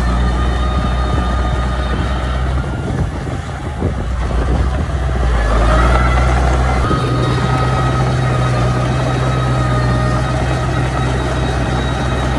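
Small crawler bulldozer's diesel engine running under load as it pushes dirt. The engine note dips, rises about five to six seconds in, then holds at a higher, steady pitch.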